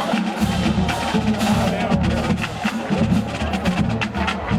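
Marching band drumline playing a cadence: sharp stick and rim clicks in a quick, steady rhythm over deep drums.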